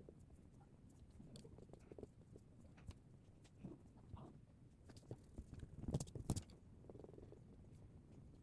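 Faint scattered taps and clicks of someone drawing at a desk, with a louder cluster of knocks about six seconds in.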